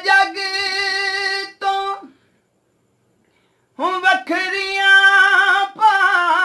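A man singing a devotional qaseeda solo, without accompaniment, in long wavering held notes. He breaks off for about a second and a half in the middle, then resumes.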